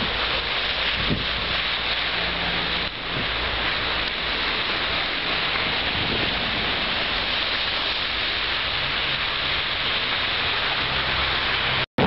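Steady, dense hiss of a blizzard, wind-driven snow and traffic on a slushy street, with a low engine hum from passing vehicles in parts. The sound breaks off abruptly near the end.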